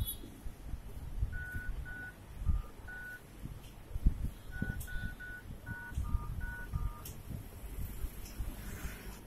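Android phone dialer keypad sounding short DTMF key tones, about eleven quick beeps, as a service code is typed in to open the phone's engineering mode. A few dull low thumps sound under them.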